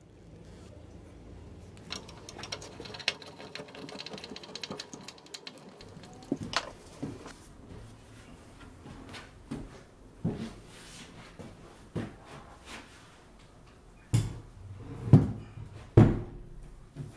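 Wooden coffee table frame being handled and set down on a hard floor: scattered knocks, then three heavy thumps near the end, the loudest sounds. Earlier there is a fast rattling clatter.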